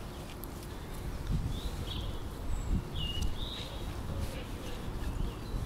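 Small birds chirping outdoors: a few short high calls about two and three seconds in, over a steady low rumble, with a couple of soft low knocks as the carp is handled in the landing net.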